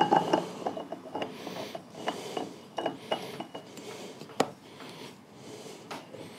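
New spin-on oil filter being screwed by hand onto a Honda GX690 V-twin engine's filter mount: a scraping, rubbing sound of the filter turning on its threads, with small irregular clicks and one sharper click a little past four seconds.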